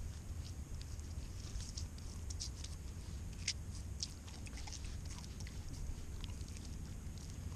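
Irregular small crackles and clicks, a couple of them sharper about three and a half and four seconds in, over a steady low rumble.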